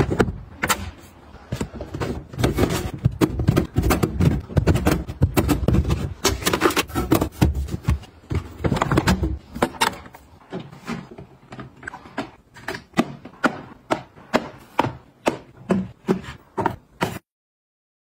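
Hands handling produce and clear plastic fridge crisper drawers: a dense run of knocks, thumps and rustles, then from about ten seconds a slower string of single light clicks and taps. The sound cuts off abruptly shortly before the end.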